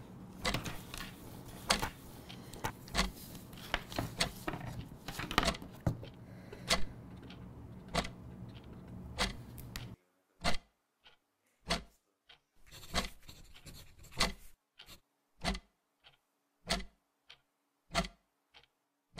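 Sharp ticks about a second apart, over a faint hiss that cuts out about halfway, after which the ticks go on alone in silence.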